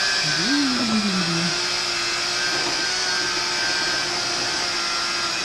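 Electric kitchen mixer running steadily at a constant whine, beating a cocoa butter-cream to make it light and fluffy.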